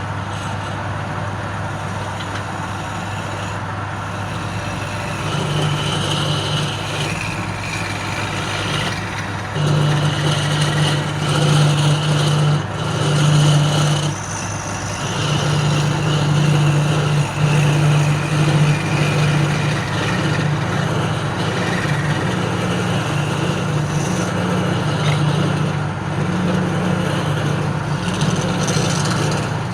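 A woodworking machine's motor running with a steady hum. From about five seconds in, a second, slightly higher hum comes and goes in stretches of a second or more, making it louder while it lasts.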